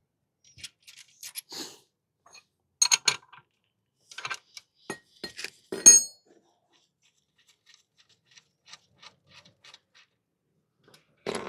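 Metal tools and engine parts clinking and knocking against each other, irregular, with the loudest knock about six seconds in and lighter ticks after it.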